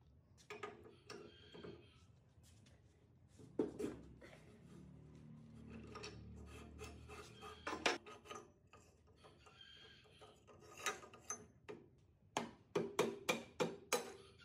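Hand work on a rusty air compressor's metal parts: scraping and rubbing with scattered clicks and knocks, then a quick run of about six sharp taps near the end.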